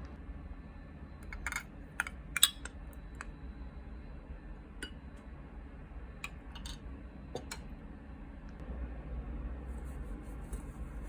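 Dishes and utensils clinking and tapping in a kitchen: a scattering of sharp knocks, the loudest a couple of seconds in, over a steady low hum.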